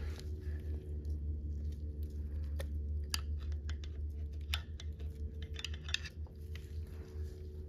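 Scattered small clicks and scrapes of a thin metal tool and gloved fingers working at a freshly seated crankshaft nose seal in a Lycoming engine's crankcase, over a steady low hum.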